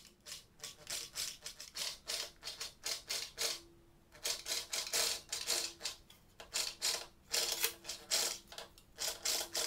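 Chicago Electric electric metal shear cutting aluminium sheet, chattering in quick bursts about four a second over a faint motor whine, with a short break about three and a half seconds in.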